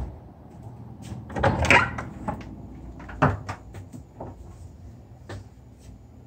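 Wooden door being handled and opened: a click as the handle is worked, a scuffing swing about a second and a half in, then a sharp knock just after three seconds and a few lighter clicks.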